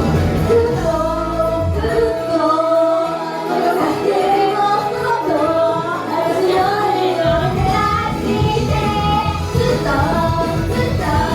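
Female idol group singing a pop song live over a backing track that has been sped up to a faster tempo than usual. About two seconds in, the bass and drums drop out, leaving the voices over lighter accompaniment, then come back in about seven seconds in.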